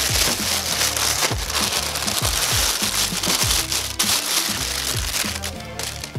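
Plastic bag crinkling as it is pulled off a boxed fog light, over background music with a steady beat. The crinkling fades near the end.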